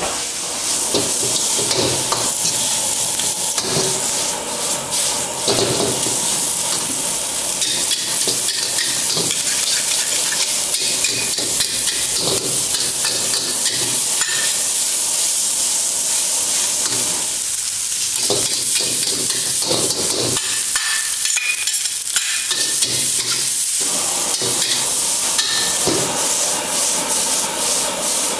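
Fried rice sizzling in a hot wok while a metal spatula and ladle scrape and clank against the pan, stirring it over and over.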